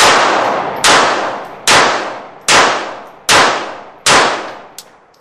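Daewoo DH380 .380 ACP semi-automatic pistol, a Walther PP clone, fired six times at an even pace about a second apart. Each loud shot is followed by a long echoing decay.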